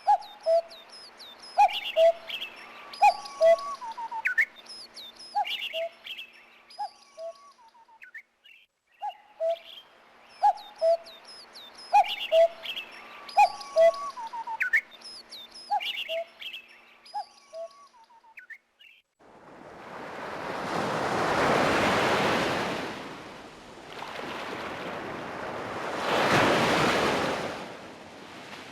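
A Motorola MS280 phone's built-in nature-sound ringtones: a recording of bird calls, chirps and short whistles, about nine seconds long and played twice. About nineteen seconds in it changes to ocean surf, two waves that swell up and die away.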